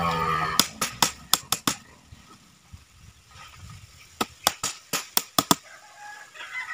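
Hammer driving nails along the pond's edge, fixing a bamboo strip over the plastic liner: two runs of quick sharp knocks, about six in each, a few seconds apart.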